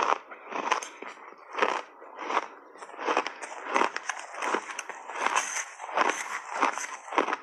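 Close-miked chewing of a mouthful of shaved ice coated with matcha and milk powder: a steady run of crisp crunches, about three every two seconds.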